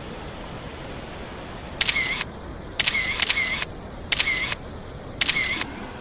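Camera-shutter clicks, five in all, each about half a second long, starting about two seconds in and loudest in the mix. Under them the steady roar of the Iguaçu Falls cascades and rapids.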